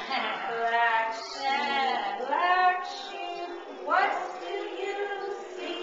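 Singing: a woman's voice carrying a song in held, gliding notes, with children's voices mixed in.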